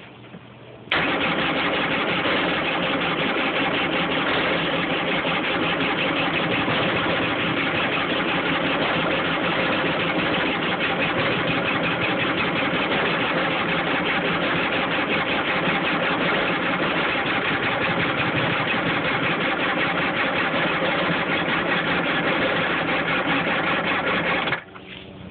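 Kawasaki JS550 jet ski's electric starter cranking its two-stroke twin engine steadily, without the engine catching, for over twenty seconds. It cuts off suddenly near the end.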